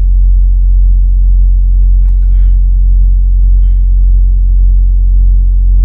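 Semi truck's diesel engine idling, a steady low rumble heard inside the cab, with a few faint brief sounds about two and three and a half seconds in.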